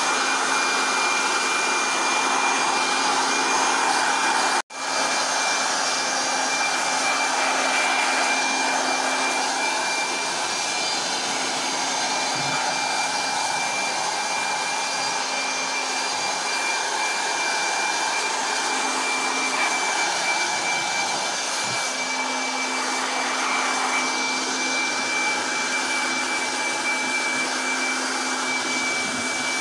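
Handheld air blower running steadily with a high whine, blowing cobwebs and dust out of the wire mesh of a poultry shed. The sound cuts out for a moment about five seconds in.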